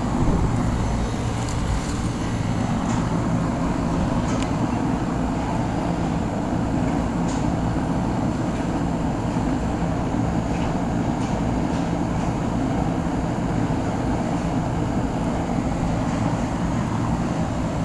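Lennox Merit Series 1.5-ton heat pump running in cooling mode: compressor and outdoor fan running with a steady low hum.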